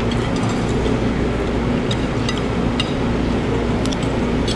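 Metal cutlery clinking and scraping on a ceramic plate a handful of times, over a steady, loud, low machine drone.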